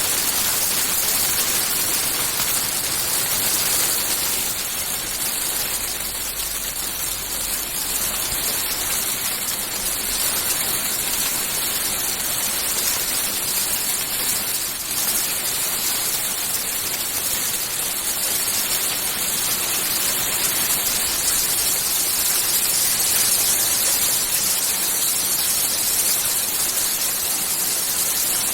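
Hailstorm: dense, steady pelting of hailstones and rain, a continuous hiss made up of countless fine ticks.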